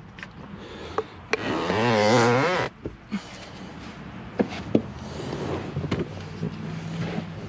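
A person climbing into a car's bucket seat. There are several sharp clicks and knocks, and a long wavering low squeak of about a second near two seconds in, as the seat takes his weight.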